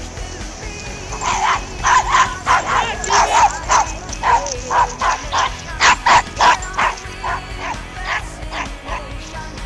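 A dog barking many times in quick, uneven runs, starting about a second in, over background music.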